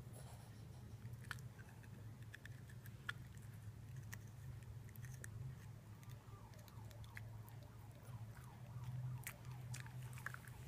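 Small dog biting and crunching a baby carrot held in a hand: scattered faint, crisp bites and clicks at irregular intervals over a steady low hum.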